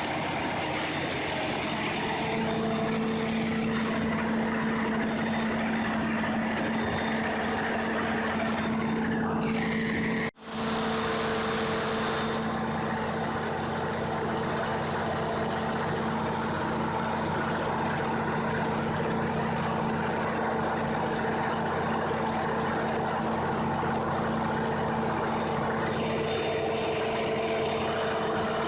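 Backup generator engine running steadily, with a steady hum in the drone. The sound drops out for an instant about ten seconds in.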